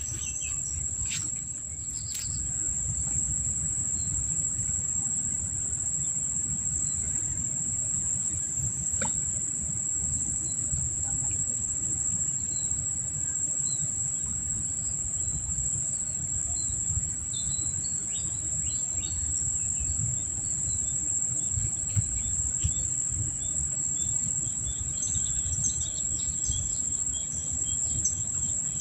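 Steady, high-pitched drone of insects, with a low rumble of wind on the microphone and scattered short bird chirps in the second half.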